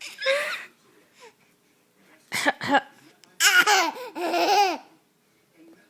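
Laughter with two short, mimicked coughs from a baby copying a cough about halfway through, followed by a longer run of laughing.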